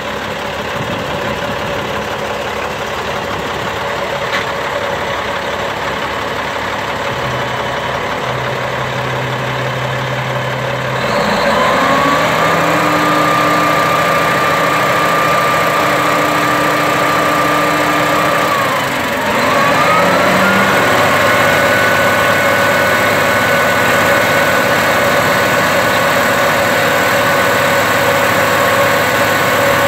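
Peterbilt roll-off truck's diesel engine idling, then run up to a steady higher speed about a third of the way in and held there, dipping briefly near the middle, run up again, and dropping back just before the end. This is the engine held at raised speed to drive the hydraulic hoist that drops and lifts the container.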